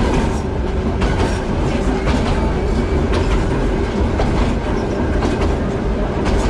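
Sydney O-class heritage electric tram running along the track, heard from inside its open wooden cab: a steady rumble with a constant hum, and sharp clacks of the wheels over rail joints about once a second.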